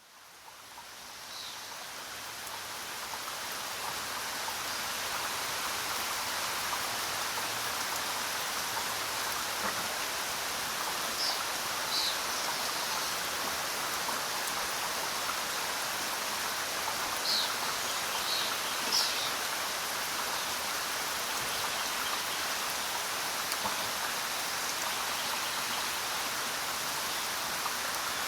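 Steady rain falling in a forest, an even hiss that fades in over the first few seconds. A few brief, high bird chirps sound now and then, a pair about eleven to twelve seconds in and a small cluster around seventeen to nineteen seconds in.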